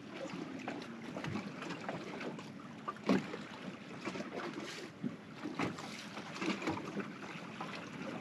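Water lapping against a fishing boat's hull, with wind on the microphone and a few scattered knocks and clicks, the loudest about three seconds in.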